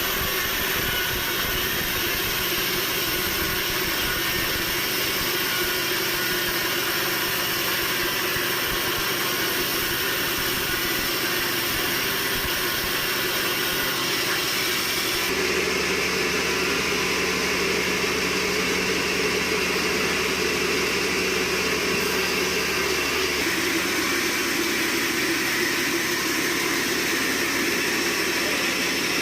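Sawmill machinery running steadily: a loud, continuous mechanical drone with a whine over it. Its tone shifts abruptly about halfway through and again a few seconds later.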